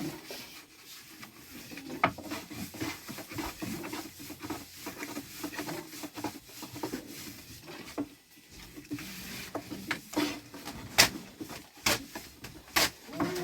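Irregular scraping and rubbing with scattered light taps, and a few sharp knocks in the second half.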